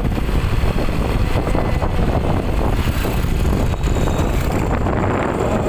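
Wind buffeting the microphone of a phone carried on a moving motorcycle, a steady rough rumble, with the motorcycle's engine and road noise mixed in underneath.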